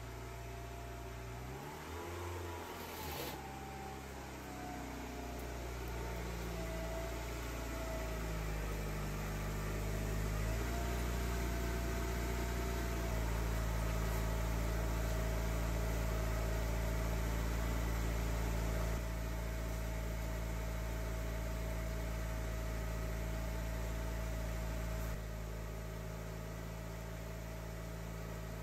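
1993 Mazda Miata's 1.6-litre four-cylinder engine running at low revs as the car creeps up onto ramps, the engine speed shifting up and down in small steps for the first dozen seconds. It then settles into a steady idle that gets a little quieter twice toward the end.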